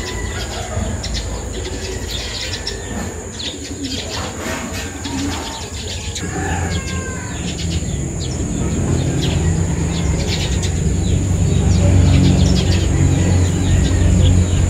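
Birds chirping at dawn, many short quick chirps with a few gliding calls, over a low rumble that gets louder about halfway through.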